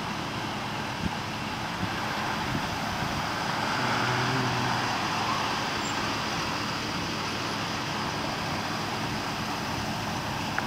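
Street traffic noise, with a vehicle driving past and loudest about four to five seconds in.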